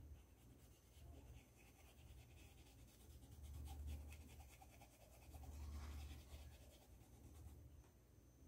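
Faint scratchy strokes of a small paintbrush dabbing and dragging paint across a cotton dish towel. A soft low rumble swells and fades twice.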